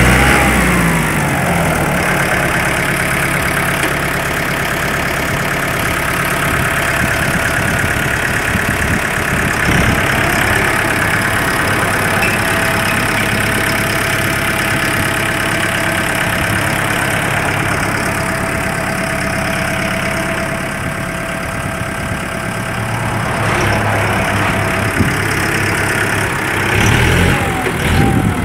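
Kubota M108S tractor's diesel engine idling steadily.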